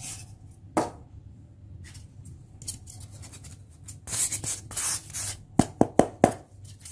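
Polystyrene foam cut-out being handled, its surface rubbing and scraping under the fingers: a stretch of rustling about four seconds in, then a few sharp squeaky clicks.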